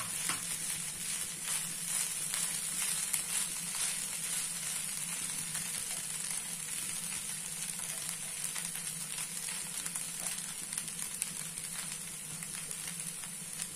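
Poha (flattened rice) sizzling in a nonstick pan with a steady hiss while a slotted metal spatula stirs it, scraping and tapping the pan in many small clicks.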